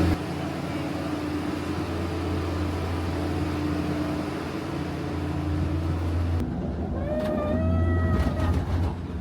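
A moving passenger cabin with a steady low mechanical hum. About two-thirds of the way through the sound changes and a squeal glides up and then down, followed by a few sharp clicks near the end.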